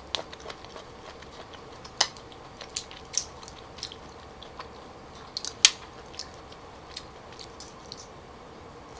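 Mukbang eating sounds: wet mouth smacks and clicks of chewing shellfish, mixed with the click of hairy cockle and clam shells being pried apart by hand. The sharpest clicks come about two seconds in and just past the middle. A faint steady hum sits underneath.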